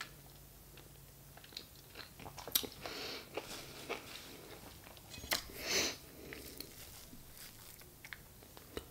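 Close-miked eating sounds of a mouthful of soft red velvet cake: wet chewing and mouth clicks, with a louder smacking burst about five and a half seconds in. Near the end, a few light clicks as a fork digs into the cake.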